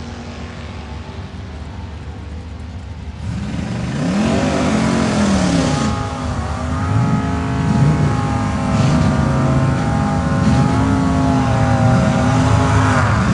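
Drag-racing car engines revving hard at the start line, over and over, the pitch swinging up and down over a steady engine drone, much louder from about four seconds in; the revving goes with a burnout that sends up tyre smoke.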